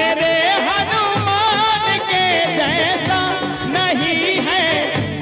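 Male voice singing a devotional bhajan in long, wavering ornamented phrases, with harmonium and hand-drum accompaniment.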